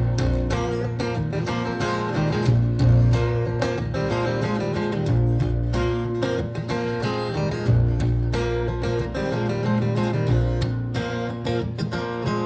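Live baritone guitar playing an instrumental passage, chords over sustained low bass notes that change every couple of seconds.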